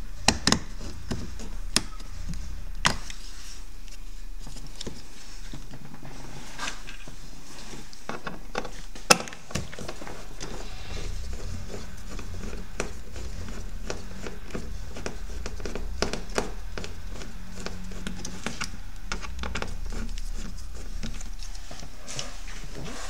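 Plastic clicks, taps and scrapes of a trim tool prying the tweeter cover off a Mercedes-Benz GLE's door panel, irregular and scattered, with one sharp snap about nine seconds in. A steady low hum runs underneath.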